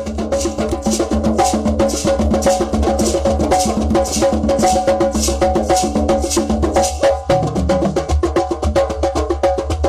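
A drum circle: several hand drums and hand percussion played together in a fast, steady groove, with a lower-pitched part joining about seven seconds in.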